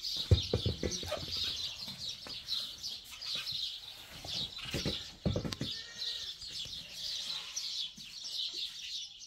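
Many small birds chirping continuously, with a few dull knocks or thumps about half a second in and again around five seconds in.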